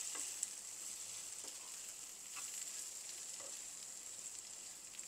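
Boiled corn kernels sizzling in butter with garlic and onion in a small nonstick frying pan, with soft scrapes of a spatula stirring them about once a second.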